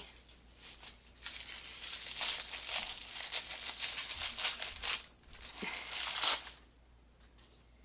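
Plastic packaging of a surprise toy crinkling and rustling as it is torn open and handled, for about five seconds; it stops shortly before the end.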